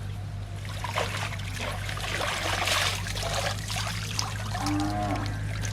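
Shallow water splashing and trickling in bursts, busiest about two to three seconds in, over a steady low hum.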